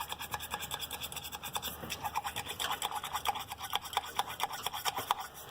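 A brush scrubbing caked carbon deposits off the intake valves of a BMW 335i/535i in quick back-and-forth strokes, several a second, with chemical cleaner.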